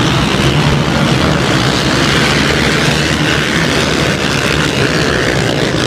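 A pack of racing quad ATV engines running hard together, a loud steady din in a covered stadium.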